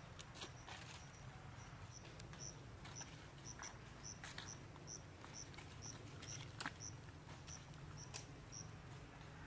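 Faint outdoor ambience: an insect chirping, one short high note about two to three times a second, with a few scattered light ticks and rustles over a low steady rumble.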